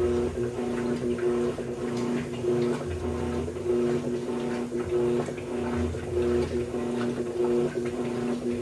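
Electrolux LT13B top-loading washing machine agitating: a steady motor hum with water sloshing in the tub, and a low surge about every three seconds as the agitator swings back and forth.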